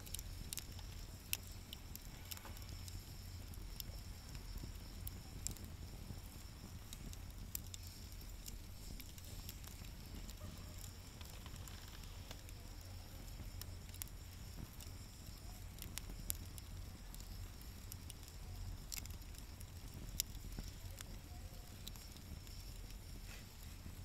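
Wood fire burning in a fire stand: irregular sharp crackles and pops over a low, steady rumble.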